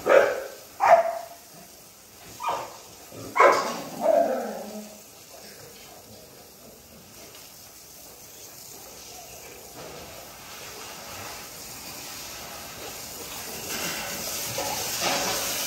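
Kennel dogs barking, about five sharp barks in the first few seconds, then a steady hiss that slowly grows louder toward the end.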